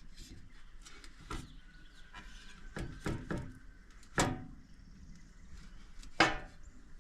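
A series of sharp knocks and clicks over faint background noise, the loudest two about four and six seconds in.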